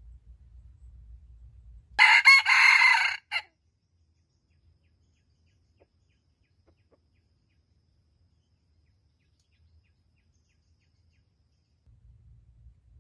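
A red junglefowl rooster crowing once, a single loud crow of about a second and a half, starting about two seconds in.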